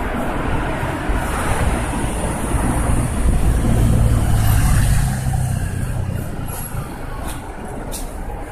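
Street traffic with a heavy road vehicle's engine passing close by. Its low hum is loudest about three to five seconds in, then fades. A few short hisses come near the end.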